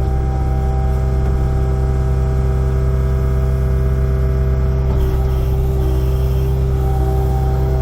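Kubota excavator's diesel engine running steadily, with a constant even tone over its low drone.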